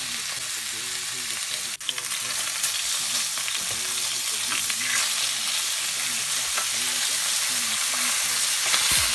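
Boneless chicken thighs sizzling and crackling in oil on a grill pan over high heat, a steady hiss with scattered pops. The sound drops out for an instant about two seconds in.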